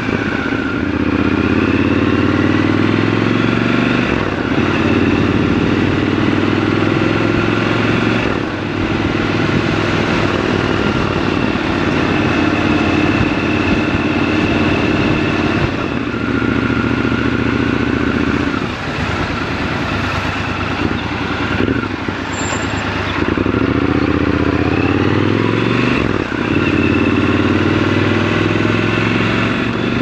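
Triumph Scrambler 1200 XC's 1200 cc parallel-twin engine running under way, its note rising and falling several times with throttle and gear changes, over steady road and wind rush.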